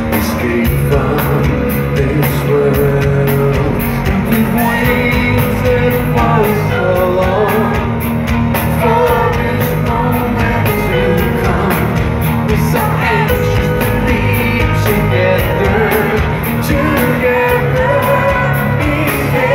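Live rock band playing, with the lead singer singing into a microphone over the band and a steady drum beat.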